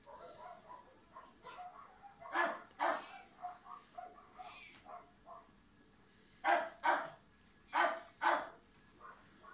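Small dog barking: three pairs of loud, high, sharp barks, the first pair about two seconds in and two more pairs near the end, with softer yips in between during the first half.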